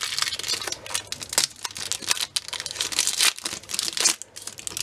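Foil trading-card packet crinkling and tearing in the hands as it is ripped open, a dense run of sharp crackles.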